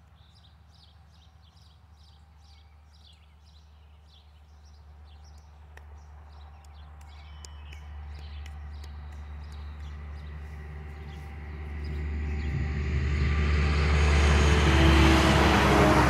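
Diesel semi truck with a flatbed trailer approaching along the road, its engine and tyre noise growing steadily louder and loudest near the end.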